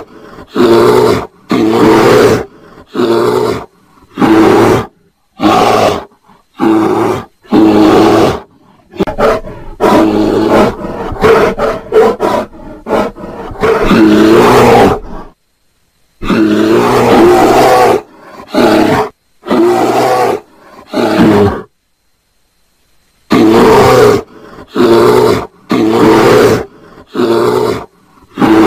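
Bear roaring in short, hoarse calls of about half a second each, roughly one a second, with a denser run of calls in the middle and two pauses of dead silence, one after the middle run and one about three-quarters of the way through.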